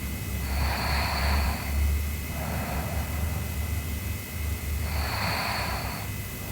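A sleeping girl snoring: two loud, breathy snores about four seconds apart, each followed by a softer breath.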